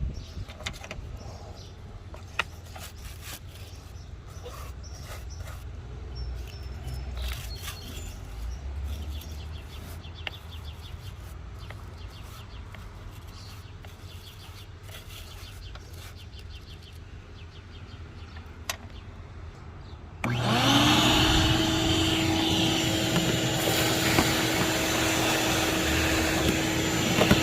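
Quiet handling and rubbing sounds with scattered clicks. About 20 seconds in, a vacuum cleaner motor switches on, spins up quickly with a rising whine and then runs steadily and loudly.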